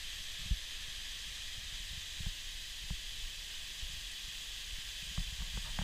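Steady hiss of a tall waterfall's water falling into its plunge pool, heard from across the pool, with a few soft low bumps.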